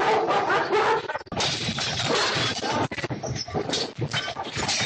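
A house shaking in a strong earthquake: a dense clatter of rattling, knocking and crashing household objects and glass sets in about a second in and keeps up without a break.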